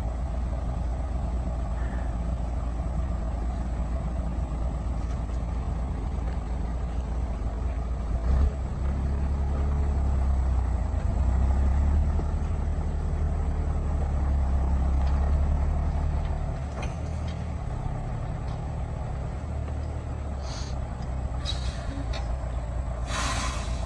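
Logging truck's diesel engine running under load, growing louder and working harder for several seconds in the middle before easing back. A short hiss of air comes near the end.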